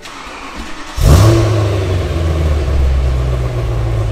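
BMW E92 M3's V8 engine starting about a second in, flaring up briefly, then settling into a steady loud idle through its quad exhaust.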